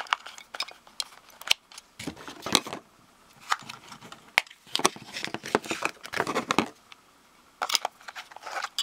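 Handling noise from a small plastic battery-powered lamp: sharp clicks as AA batteries are pressed into its plastic battery compartment, mixed with crinkly rustling of plastic wrapping. The sounds come in several short bursts.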